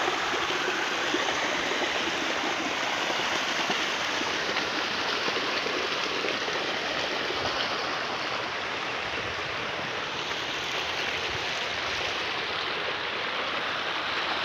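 Fast running water rushing steadily down a narrow ditch, cutting off suddenly at the end.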